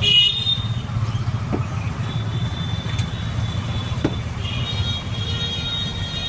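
Steady low engine rumble, with a few sharp glass clinks as soda bottles and glasses are handled, and a high squeal over the last couple of seconds.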